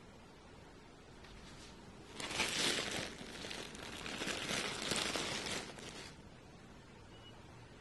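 Thin plastic bread bag crinkling as it is handled and opened, in two spells starting about two seconds in and stopping about six seconds in.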